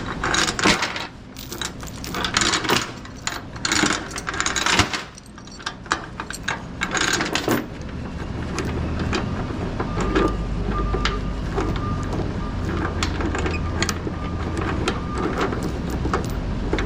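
Steel tie-down chain clinking and rattling as it is handled and wrapped around a cable reel, with scrapes and knocks. After a few seconds the handling thins out and a steady low rumble takes over.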